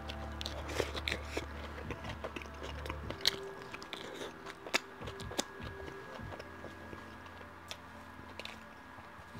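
Close-miked eating of a bacon cheeseburger: a bite, then wet chewing with many short crunchy clicks and crackles, a few of them sharper and louder.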